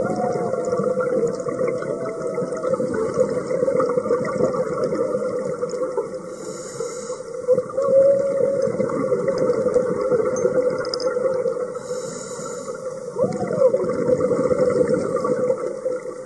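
Scuba diver breathing through a regulator underwater: a short hiss of inhalation twice, about five and a half seconds apart, each followed by gurgling exhaled bubbles.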